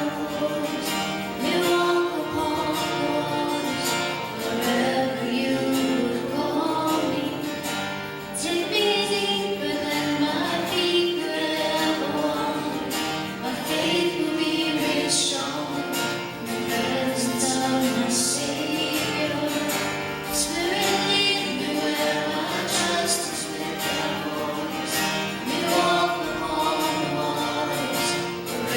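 Gospel singing with instrumental accompaniment, voices carrying a melody over a steady band.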